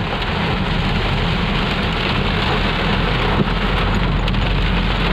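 Heavy rain clattering on the roof and windshield of a Suzuki Esteem, heard from inside the cabin as a dense, even downpour over the low rumble of the moving car.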